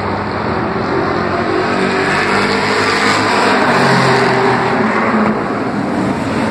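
Several street stock race cars running at speed around an oval track, their engines swelling loudest about four seconds in as the pack passes close by.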